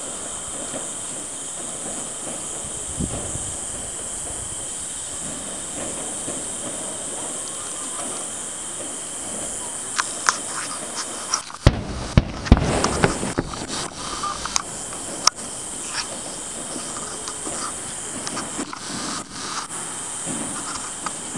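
Distant aerial fireworks going off as a string of sharp pops and bangs, starting about halfway through, densest around twelve seconds in with a deep rumble, then scattered bursts. Steady insect chirring runs underneath.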